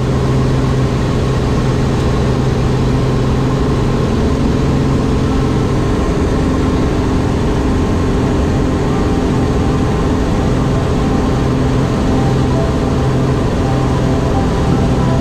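Single-engine propeller plane's engine and propeller running steadily, heard inside the cabin: a loud, even drone with a low hum.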